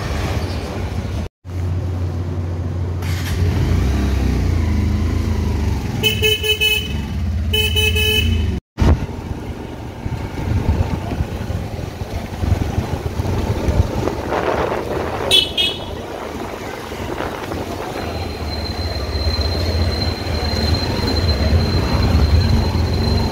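A two-wheeler's engine running steadily with road noise as it rides along wet streets. A vehicle horn honks twice, about six and seven and a half seconds in, and gives a short toot again about halfway through. The sound cuts out briefly twice.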